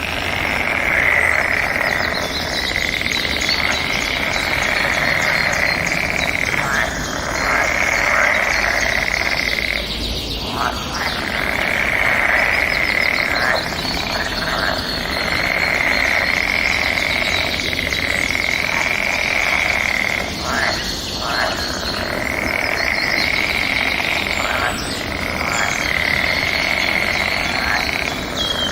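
Forest bird chorus: many birds chirping and singing over each other, with a steady high trill that repeats in stretches of several seconds, separated by short breaks.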